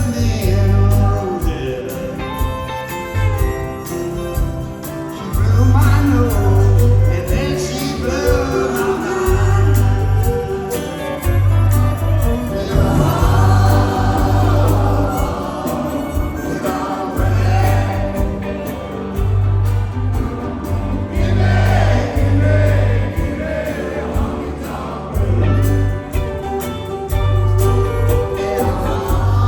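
Live band playing a song with sung vocals and loud, booming bass notes that come in repeated stretches.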